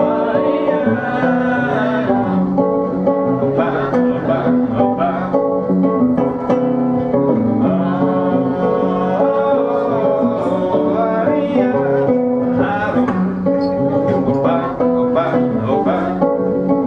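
Live music: a hollow-body archtop electric guitar strummed in a samba rhythm, with voices singing along.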